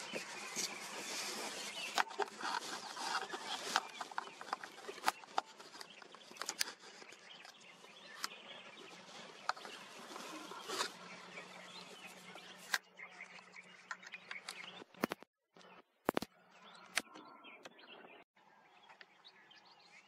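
Outdoor ambience with small birds chirping over a steady hiss, dotted with many sharp clicks, and cut by two short gaps of silence about three quarters of the way through.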